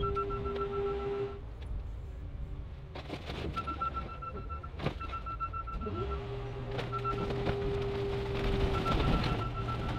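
Car crusher's engine-driven hydraulics running with a steady hum that drops away about a second in and comes back about six seconds in. Sharp cracks and crunches of sheet metal come as a pickup truck is pressed flat, loudest near the end.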